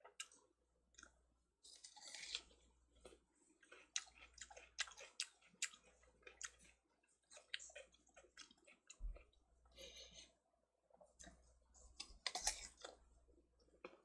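Close-up wet mouth sounds of eating ripe melon straight off the rind: quick sharp wet clicks of biting and chewing the juicy flesh, with a few longer slurps, about two seconds in, ten seconds in and near the end.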